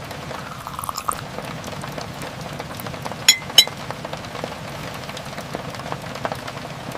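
Steady rain falling, with two short, bright ringing clinks a third of a second apart about three seconds in.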